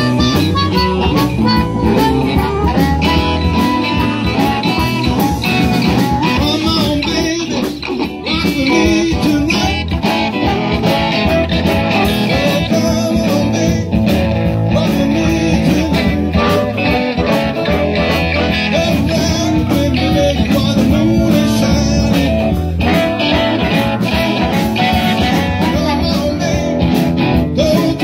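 A live blues band playing electric guitars, harmonica and drums.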